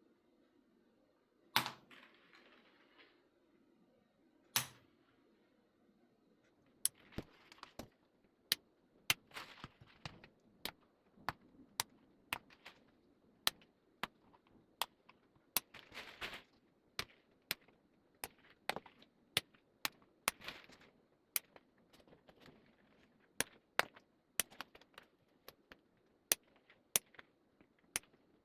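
Nail clipper snipping the fiber-optic star strands of a starlight headliner, one sharp click per cut. Two spaced clips come near the start, then clips follow at about one or two a second.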